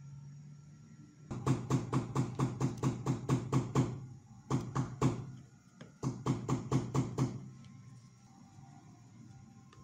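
Rapid, even tapping on a thin metal sheet lying on a steel bench block, about six taps a second, in three spells: a long run from about a second in, a short burst around the middle and another shortly after.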